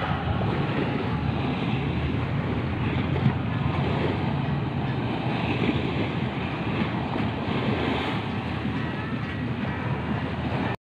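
Sea waves washing and splashing against a concrete seawall, with wind buffeting the microphone.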